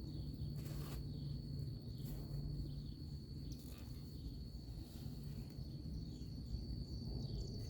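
An insect, most likely a cricket, trills on one steady high pitch over a low steady hum, with a few brief soft rustles.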